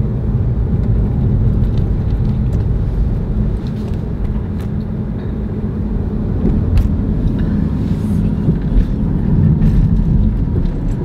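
Steady low rumble of a car driving slowly on tarmac, heard from inside the cabin.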